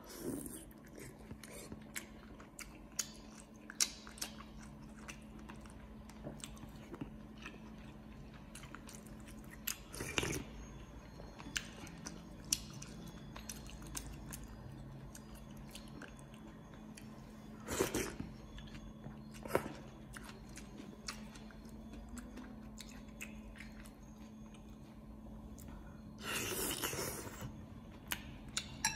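A person eating noodle soup up close: chewing, light clicks of a metal spoon and chopsticks against a ceramic bowl, and three louder slurps from the spoon about eight seconds apart. A faint steady hum runs underneath.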